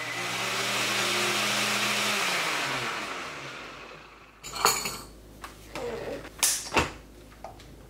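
Nutribullet blender motor running loud and steady as it purées a thick orange mixture, then spinning down with falling pitch from about two seconds in. After it stops, a few sharp plastic clicks and knocks as the cup is handled and twisted off the base.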